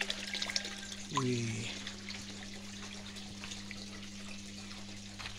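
Water trickling and splashing into an aquaponics fish tank, over a steady low hum.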